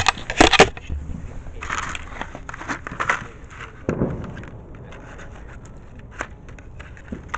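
Handling noise from the camera itself: it scrapes and knocks loudly as it is set down on a rough surface, followed by scattered light clicks and rustles of hands handling small things close to the microphone, with a duller knock about four seconds in.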